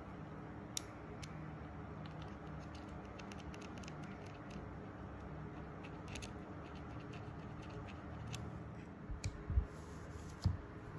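Light, scattered clicks of metal tweezers tapping and scraping inside a plastic keyboard stabilizer housing. Near the end, scissors snip through a sheet of EVA foam, with two dull thuds about a second apart.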